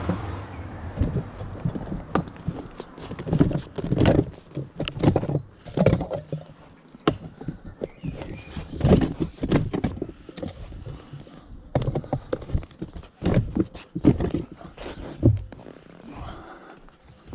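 Scrap items and chairs being handled and packed into a van: a run of irregular clanks, knocks and thuds with short pauses between them.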